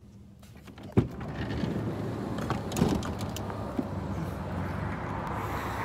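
A sharp knock about a second in, then a steady low rumble of an idling vehicle engine with a few lighter clicks over it.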